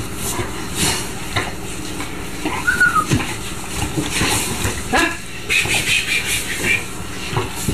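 Puppies playing roughly, with scuffling, scattered knocks and clicks, and a short high squeak about three seconds in.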